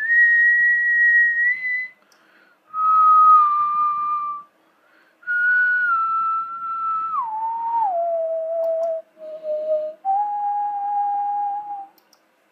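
A person whistling a slow tune: long held notes that slide from one pitch to the next, with short breaks between phrases, dropping to lower notes about two-thirds of the way through.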